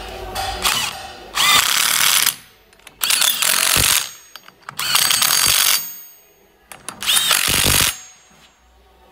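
Cordless impact wrench running on the flywheel bolts of a crankshaft assembly, in four bursts of about a second each with short pauses between.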